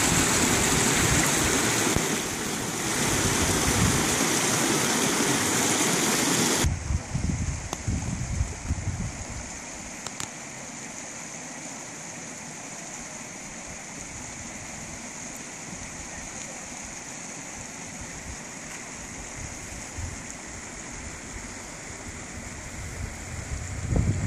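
Mountain creek water rushing steadily. It drops suddenly to a fainter, more distant rush about six or seven seconds in. A few low rumbles come on the microphone just after the drop and again near the end.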